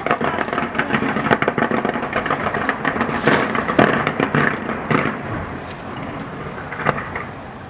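Fireworks display bursts going off in quick, crackling bangs, densest for about the first five seconds, then thinning out and quieter near the end.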